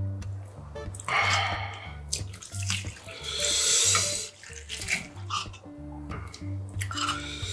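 Cold broth in a glass bowl of mulhoe sloshing in bursts as it is stirred with chopsticks and thick gochujang sauce is spooned in; the loudest burst comes about three seconds in. Background music with a steady bass line plays underneath.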